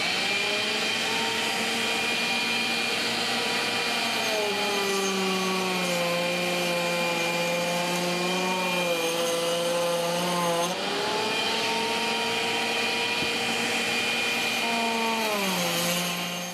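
Table-mounted router spinning a slot cutter that grooves the edge of laminate-faced plywood. The motor's pitch drops and holds lower while the cutter is loaded in the wood about four seconds in, rises back about eleven seconds in, then drops again near the end.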